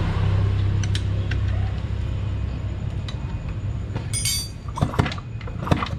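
Low steady rumble of an engine running, easing a little after the first few seconds, with a short jingle of metal parts about four seconds in and two sharp knocks near the end.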